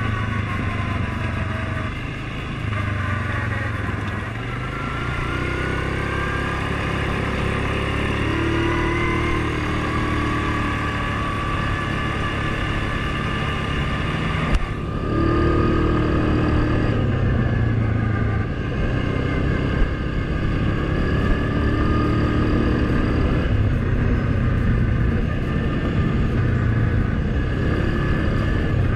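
ATV engine running on a trail ride, its revs rising and falling again and again with the throttle. A single sharp knock comes about halfway through, and two lighter clicks follow a few seconds later.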